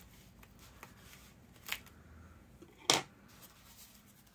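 Faint rustling and crinkling of a sealed packaging bag being handled and opened, with a small tick about one and a half seconds in and one loud sharp click about three seconds in.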